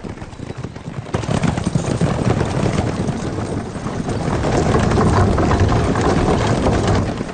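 Horse-drawn carts galloping past over a dirt street: a dense clatter of hooves and the rumble of spoked wooden wheels. It starts about a second in, grows louder, and cuts off just before the end.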